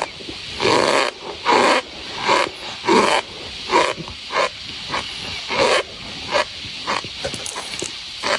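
Compressed cornstarch bar squeezed and crumbled between fingers, giving a run of short squeaky crunches about every half second, smaller and closer together near the end.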